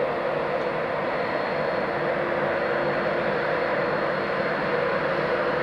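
InterCity Class 91 electric locomotive running, a steady rushing hum from its cooling fans and traction motors with a faint steady whine over it.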